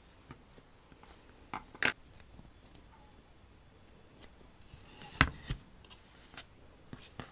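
Small scissors snipping wool fibres, trimming the fur of a needle-felted cat face: a handful of separate sharp snips, two close together just before two seconds in and the loudest about five seconds in.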